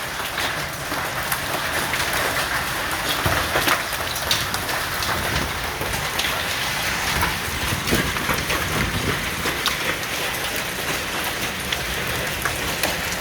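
Heavy storm rain beating down steadily, with frequent sharp ticks of individual hits on surfaces.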